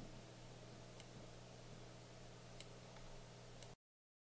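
Near silence: faint room tone with a low steady hum and three faint clicks of a computer mouse button, spaced a second or more apart. Near the end the sound cuts out to dead silence.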